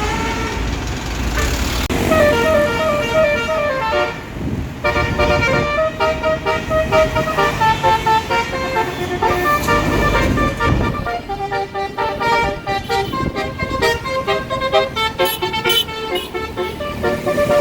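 Tour bus's Basuri telolet multi-tone horn playing a tune in stepped horn notes, the notes coming quicker in the second half, with the bus's engine rumbling underneath.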